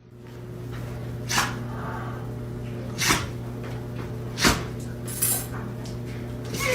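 A dog giving four short, sharp puffs of breath, like sneezes, about a second and a half apart, over a steady low hum.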